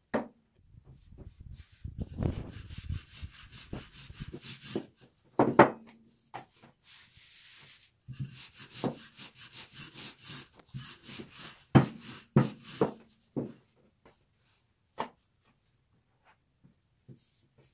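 Kitchen preparation sounds: rapid, repeated scraping or rubbing strokes in two stretches, broken by a few sharp knocks, then quiet.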